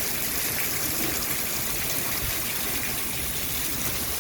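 Heavy thunderstorm rain pouring steadily, driven by gusting wind: an even rushing noise.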